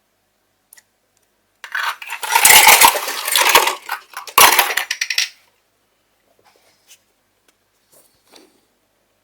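Slime being squeezed and worked by hand, giving loud crackling and clicking in two bursts, then a few faint ticks near the end.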